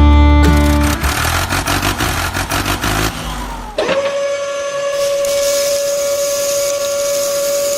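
Small motor running: a fast dense rattle at first, then from about four seconds in a steady high-pitched whine that holds at one pitch.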